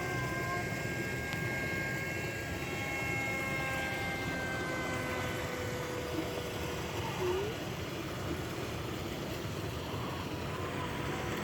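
Radio-controlled Su-37 model jet in flight: a thin, high whine with several tones that drift slowly up and down in pitch as it passes, over a steady background hiss.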